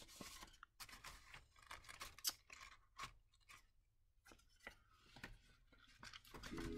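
Faint rustling and flicking of old paper ephemera, labels and cards, being leafed through and sorted by hand, with soft scattered clicks as pieces are pulled out and set down. Soft music comes in near the end.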